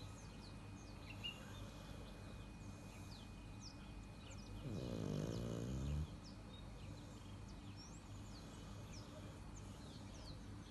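Black leopard snoring like a person: one snore lasting about a second and a half, around five seconds in. Small birds chirp in the background.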